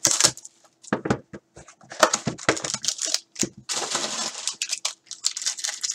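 Hands unwrapping and opening a cardboard trading-card box and handling the foil-wrapped pack inside: a string of clicks, rustles and plastic crinkles, with a denser stretch of crinkling about four seconds in.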